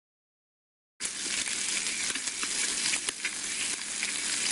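Dense crackling sizzle full of small pops, cutting in suddenly after about a second of dead silence.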